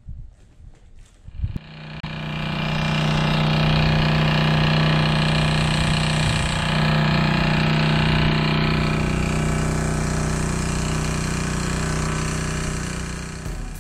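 An engine starts up about one and a half seconds in and runs steadily with a strong low hum and a hissing rush, then fades out near the end.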